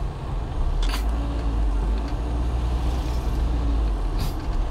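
Car running along a street, heard from inside the cabin: a steady low engine and road rumble, with two short sharp clicks, about a second in and near the end.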